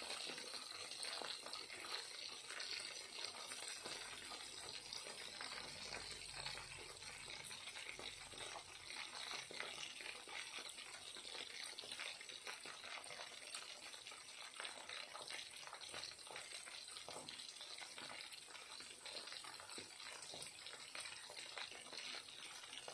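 Chicken wings shallow-frying in hot oil in a non-stick pan: a steady sizzle full of fine crackles and pops.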